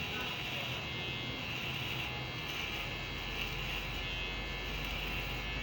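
Electric hair clipper with a freshly sharpened blade running with a steady buzz while cutting hair.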